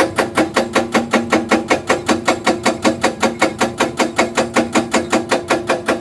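Hydraulic rock breaker on a Hyundai crawler excavator hammering into rock, a steady rapid run of blows at about six a second, each with a metallic ring.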